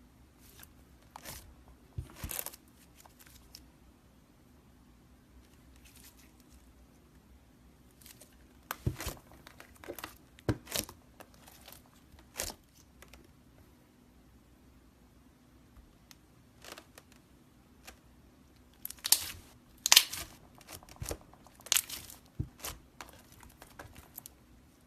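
Slime being worked by hand, giving clusters of sharp crackles and pops with quiet stretches between; the loudest cluster comes near the end.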